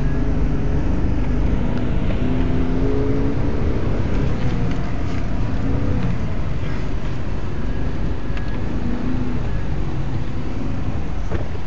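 Toyota Land Cruiser driving over sand dunes, heard from inside the cabin: a steady deep rumble with the engine note rising and falling as it revs on the slopes, and a few light knocks.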